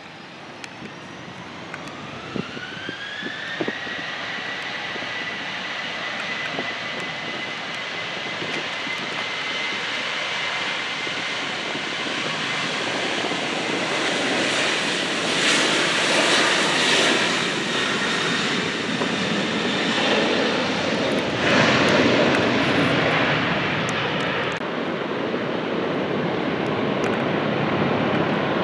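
Jet airliner's engines spooling up for takeoff: a whine rises in pitch over a couple of seconds and then holds steady, while the engine noise grows steadily louder.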